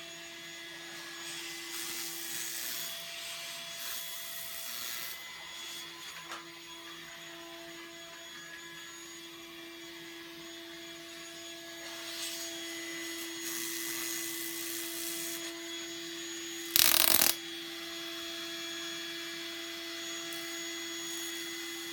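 Electric fan motor humming steadily at full speed, next to a homemade spark-gap Tesla coil fed by microwave oven transformers. The spark gap fires in hissing, crackling spells of a second or two, with one much louder half-second crack about seventeen seconds in.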